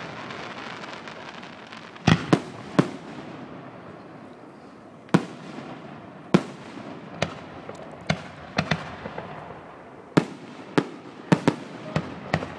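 Aerial fireworks display: about fifteen sharp booms of shells bursting at irregular intervals, some in quick pairs, over a steady hiss.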